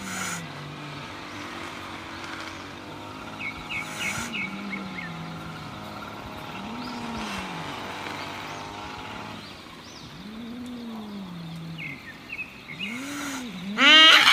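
Two cats, an orange and a grey tabby, yowling at each other in a standoff. Low, drawn-out growling yowls rise and fall every few seconds, then a loud screech comes near the end as the fight breaks out. Birds chirp twice in the background.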